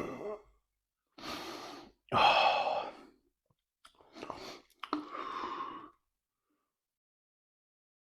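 A man making short breathy throat sounds, four in a row with the loudest about two seconds in, then silence.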